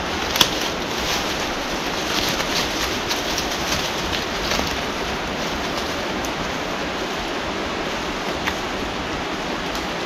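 Steady rushing noise, with a sharp click about half a second in and a fainter one near the end.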